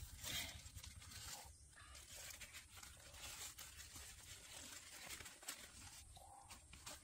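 Faint rustling of leaves and crackle of twigs as hands pull plants aside and work in wet mud around a crab hole, with scattered soft clicks that are loudest in the first second or so.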